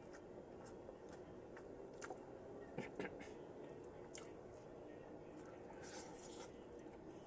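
Close-miked chewing and biting of vegetables: scattered short, crisp clicks and crunches, with a denser run of crunching about six seconds in.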